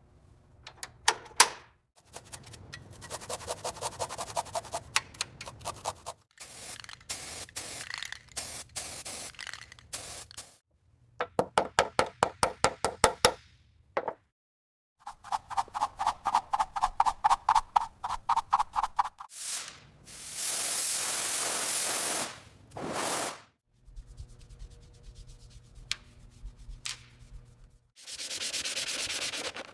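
A sequence of restoration sound effects: runs of rhythmic scrubbing and sanding strokes, several per second, broken by short gaps. About two-thirds through come two spray-like hisses, and another starts near the end.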